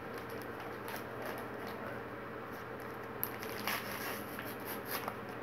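Faint rustling and crinkling of an instant pudding mix packet being shaken and squeezed empty over a bowl of milk, with a few light crackles and taps about three to five seconds in.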